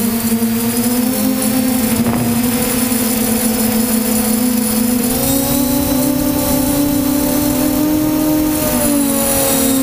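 DJI F550 hexacopter's six electric motors and propellers droning steadily, heard close up from the camera on the airframe. The pitch steps up about halfway through as the throttle changes, then drops back near the end.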